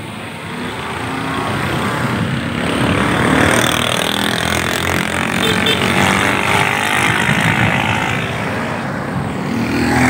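Wind rushing over the microphone with a vehicle's engine running underneath as it rides along a road, building up over the first few seconds and then staying loud.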